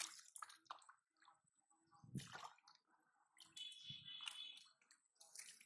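Faint, intermittent sloshing and squelching of hands groping through shallow muddy water and mud, with small splashes, the strongest about two seconds in.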